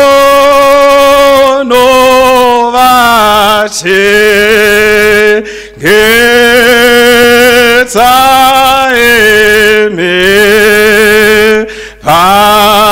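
A man singing a slow worship song in Shona, solo and unaccompanied, holding long notes with vibrato in phrases broken by short breaths.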